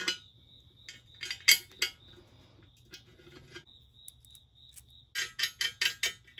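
Small steel bolts and lock washers clinking in the hands and against the aluminium bell housing and steel bracket as they are picked out and threaded in by hand. The clinks are scattered at first, then a quick run of clicks comes about five seconds in.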